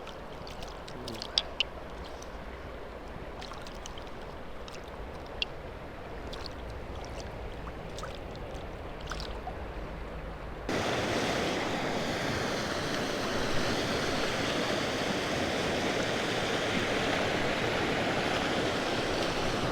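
Creek water running steadily. For the first ten seconds or so it is quieter, with scattered small ticks and clicks; then it cuts abruptly to a louder, steady rushing.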